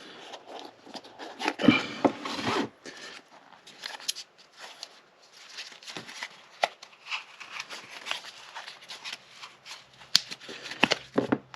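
Watch packaging being handled: irregular rustling, scraping and sharp clicks and taps as the watch and its box inserts are moved about by hand.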